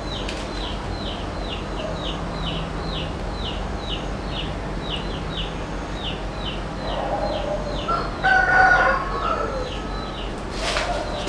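A rooster crowing once, from about seven seconds in, over a steady run of short, high, falling chirps repeating about three times a second.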